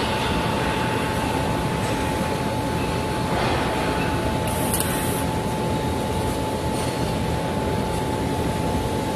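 Steady background noise of a welding shop's ventilation and machinery, with a steady whine and a short hiss about halfway through.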